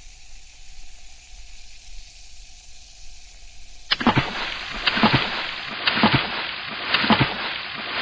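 Water sounds: a faint steady fizzing hiss, then about halfway through a louder rush of splashing and sloshing, broken by irregular sharp splashes.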